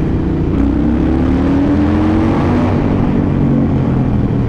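Harley-Davidson Sportster 883's V-twin engine pulling under acceleration inside a road tunnel, its pitch rising over the first couple of seconds and then holding steady.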